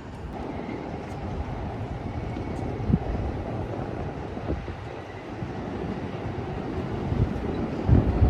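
Low, steady rumble of outdoor city ambience with a few dull thumps, the loudest near the end.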